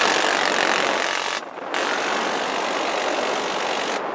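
M134 minigun firing from the helicopter's door in two long, continuous bursts, with a short break about a second and a half in. The helicopter's rotor and turbine noise runs beneath.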